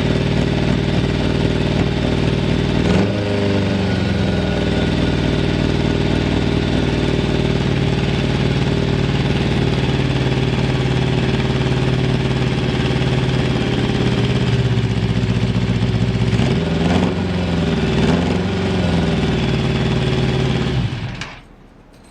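Yamaha FZR750 inline-four motorcycle engine idling steadily, which the seller gives as a stable idle with no abnormal noise. Its note rises briefly about three seconds in and again around seventeen to nineteen seconds, and the engine is shut off near the end.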